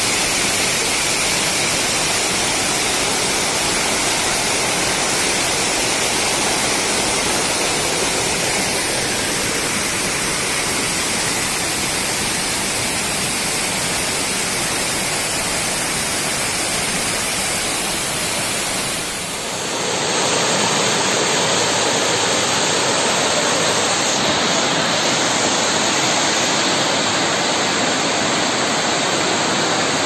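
White water of a forest waterfall rushing and cascading over boulders, a steady loud rush of water. About two-thirds of the way through it dips briefly and comes back with a slightly different tone.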